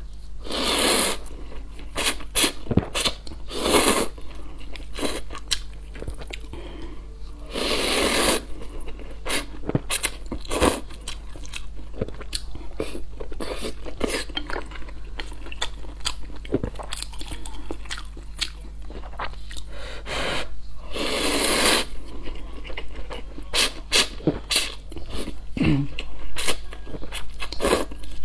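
Close-miked eating sounds of spicy Buldak fire noodles: several long slurps, the biggest about a second in, about eight seconds in and about twenty-one seconds in, with wet chewing and small mouth clicks in between.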